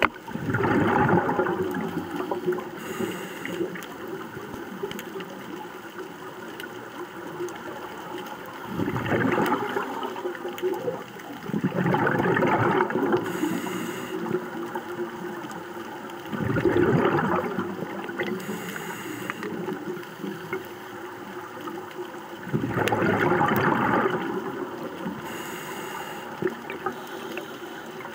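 A scuba diver's regulator underwater: exhaled air bubbles out in a loud gurgling burst every few seconds. Short high hisses between the bursts come from breathing in through the regulator.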